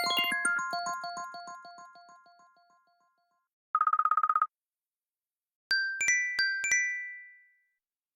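iPhone ringtones and alert tones played one after another. A repeating bell-like ringtone fades out over the first three seconds. About halfway through comes a short buzzy pulsing tone, then a brief chime of bell-like notes struck in two pairs that die away.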